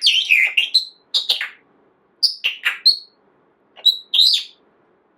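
Pet parrot giving short, high-pitched chirps and whistles in four quick groups, the loudest at the start.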